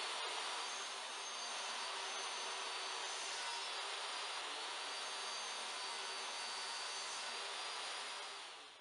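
DeWalt DWE7491RS 10-inch jobsite table saw running at full speed with a steady high whine while a plywood crosscut sled is pushed through the blade. Near the end the saw is switched off and the sound dies away as the blade spins down.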